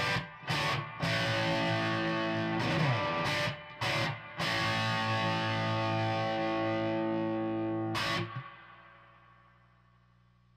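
Distorted electric guitar through an amplifier at full volume, with the attenuator set to zero attenuation: a few short chord stabs, then a long held chord that rings and fades out, leaving a low amp hum.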